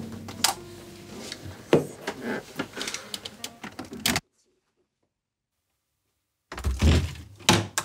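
A run of short knocks and clicks, then about two seconds of dead silence, then two sharper knocks near the end.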